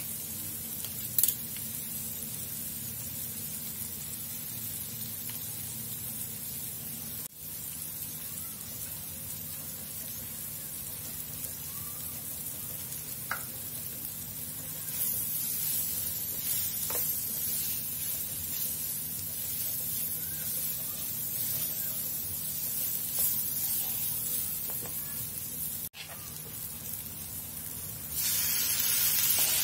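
Tomato, sweet corn and capsicum masala sizzling in a nonstick frying pan, a steady hiss that grows louder about halfway through. It jumps louder again near the end as a heap of noodles is tipped into the pan.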